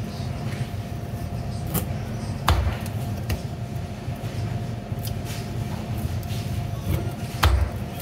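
A knife cutting through a halibut's backbone into bone-in chops, with two sharp knocks of the blade hitting the plastic cutting board, one about two and a half seconds in and one near the end, and lighter clicks between, over a steady low hum.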